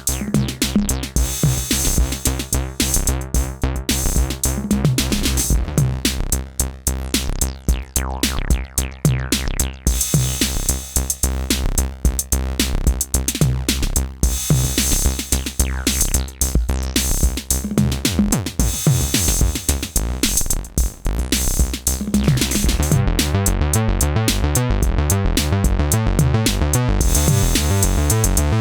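Synthesizer bass line playing over a drum-machine beat. About 22 seconds in, the bass pattern changes to a busier, more continuous sequence.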